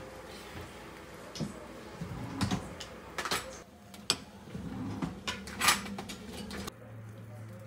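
A run of short knocks and clatters, like objects being handled and set down, over a steady low background hum.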